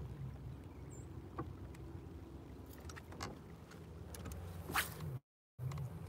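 Steady low hum of a bass boat's electric trolling motor, with scattered faint clicks and one sharper tap near the end. The sound cuts out briefly twice near the end.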